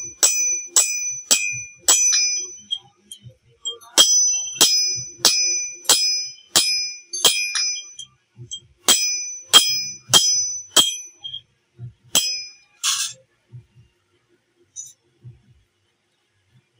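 Hand hammer blows on metal resting on a steel anvil, each strike ringing with the same clear bell-like tone. The blows come in three runs of quick strikes, about two a second, with short pauses between them. A last single blow and a harsher scrape follow near the middle, then only a few faint taps.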